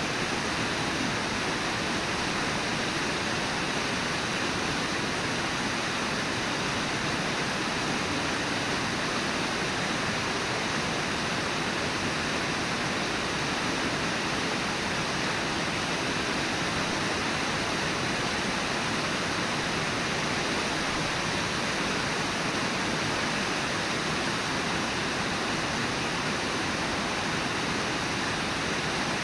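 Steady rush of river water, an even, unbroken roar with no distinct splashes or calls standing out.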